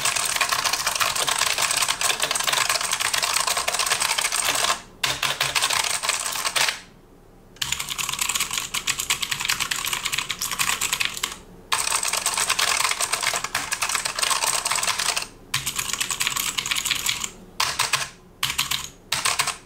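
Fast, continuous typing on a Razer Huntsman Elite mechanical gaming keyboard: a dense run of key clicks broken by a few short pauses, played as a typing sound test.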